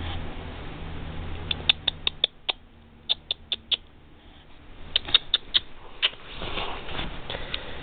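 Sharp clicks in quick runs of four to six, three runs in all, then scattered clicks over a soft rustle near the end.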